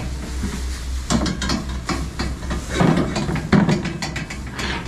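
Young calves being herded into a shed: an irregular run of knocks, clatter and rustling as they move about.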